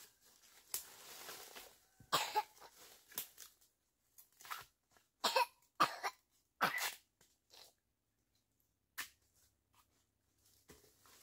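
A person coughing, a string of short coughs over several seconds that then stops.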